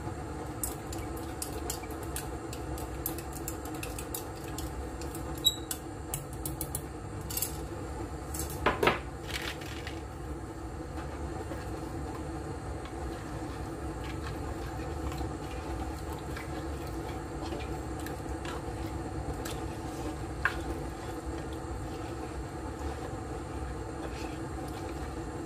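A cooking spoon knocking and scraping against a nonstick pot while powder is stirred into simmering broth. The clicks and knocks come thick during the first ten seconds and then mostly stop, leaving a steady low hum underneath.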